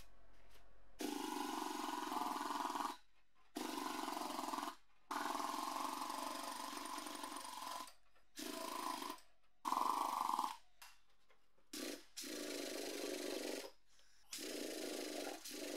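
Handheld power chisel hammering in about eight bursts of one to three seconds each, its flat chisel bit chipping crusted rust and debris off a corroded metal heater housing.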